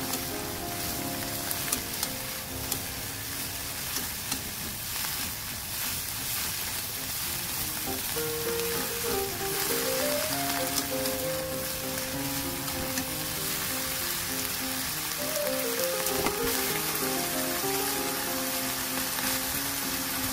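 Green bell pepper strips and tiny dried anchovies sizzling in a hot pan as they are stirred with chopsticks and a spatula, with scattered light clicks of the utensils against the pan. Soft background music plays along.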